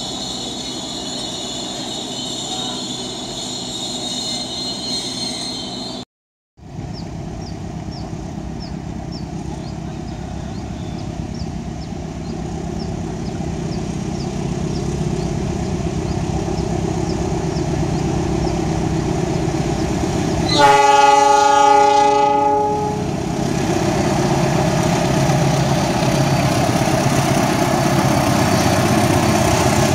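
Train wheels squealing with steady high tones for the first few seconds. After a cut, a diesel locomotive hauling freight wagons runs toward the listener and grows steadily louder. About two-thirds of the way through it sounds its horn once, a chord of several tones lasting about two seconds.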